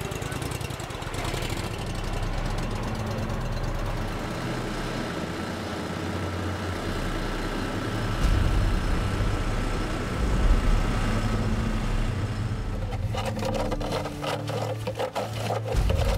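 Outboard motor of an aluminium jon boat running steadily under way, with a fast even beat low down; near the end its sound gives way to a different, faster rhythmic ticking.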